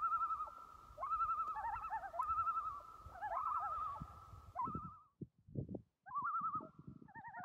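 Common loons giving tremolo calls, bursts of rapid wavering, laughing notes, several birds overlapping at different pitches. The calling breaks off briefly about five seconds in, with a few low knocks, then resumes.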